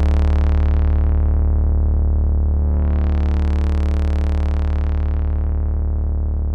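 Electronic film-score music: a deep synthesizer note held steadily, its tone darkening, brightening again around the middle as a filter sweeps open, and darkening once more.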